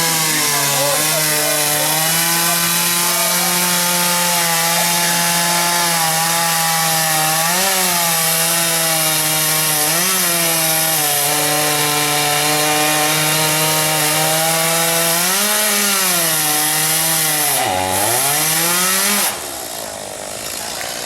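Chainsaw running at high speed while cutting wood, its engine note steady with a few brief rises. Near the end the pitch sags sharply and recovers, then the sound cuts off suddenly about nineteen seconds in.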